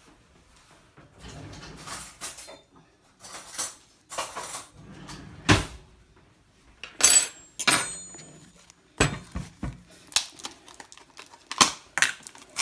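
Dishes and metal cutlery clattering and clinking: a run of separate knocks and clinks, coming faster in the second half.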